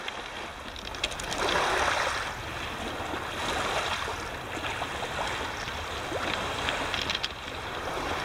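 Small lake waves washing onto a stony beach in swells, with wind rumbling on the microphone and a few sharp clicks.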